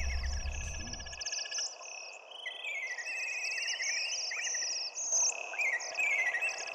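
An outdoor chorus of many overlapping chirping calls, birds and insects, with short repeated falling notes. A low drone underneath stops about a second in.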